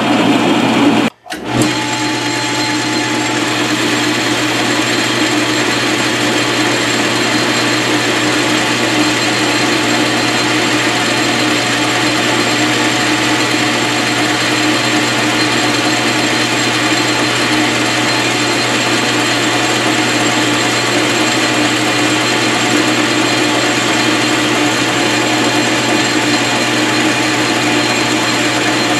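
South Bend 13-inch lathe running steadily while a boring bar cuts inside the tailstock ram, a light pass of about 25 thousandths that runs without chatter. The sound cuts out briefly about a second in.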